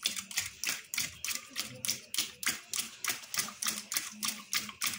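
A whisk beating two eggs in a ceramic bowl, clicking against the bowl with each stroke in a steady, even rhythm of about four to five strokes a second.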